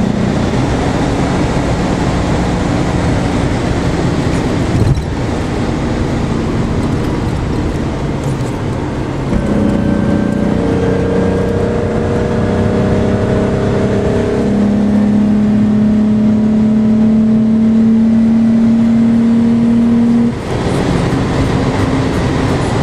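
VW Golf Mk3 VR6 Syncro's narrow-angle six-cylinder engine heard from inside the cabin under way, a steady drone that holds its pitch for stretches and breaks off and resumes a few times.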